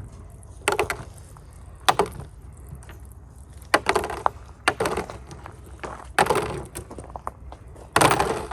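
Irregular knocks and clatters of hand tools and toilet parts being handled during disassembly, about half a dozen sharp strikes, a couple of them drawn out into short scrapes.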